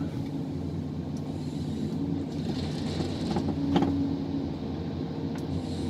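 John Deere 1270G harvester heard from inside its cab: engine and hydraulics running steadily as the H480 harvester head works a felled tree, with a few short sharp knocks.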